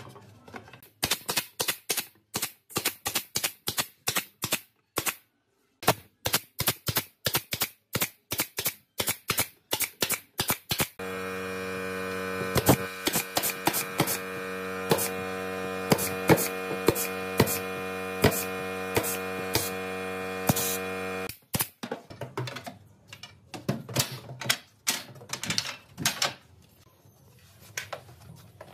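Pneumatic brad nailer driving nails into wooden boards: rapid sharp shots, about three a second. A steady hum joins for about ten seconds in the middle.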